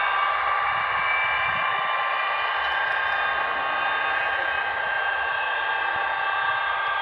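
Avro Vulcan B.2's Rolls-Royce Olympus turbojet engines running steadily shortly after start-up: a high whine of several steady tones over a rushing hiss.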